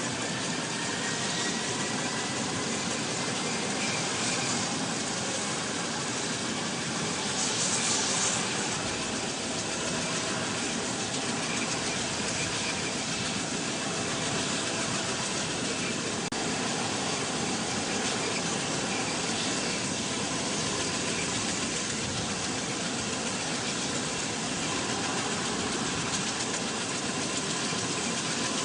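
V-22 Osprey tiltrotor's turboshaft engines and rotors running, a steady rushing noise with a faint turbine whine that climbs at the start.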